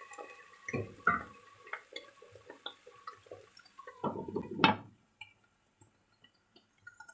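Chicken drumsticks simmering in braising liquid in a wok, with small bubbles popping and ticking. About four seconds in a glass lid clatters onto the wok, the loudest sound.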